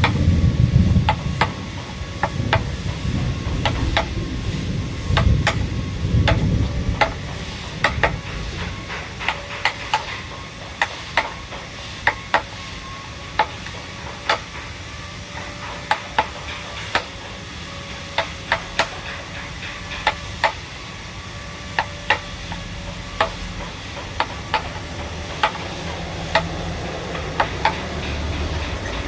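Mallet striking a wood-carving chisel in sharp, irregular taps, about one a second, over a low rumble that is heavier in the first several seconds.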